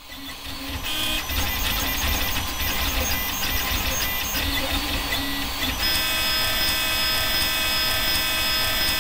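Makerfarm Prusa i3v 3D printer printing, its stepper motors whining in quickly changing pitches as the print head and bed move. The sound fades in over the first second. From about six seconds in, the tones hold steadier.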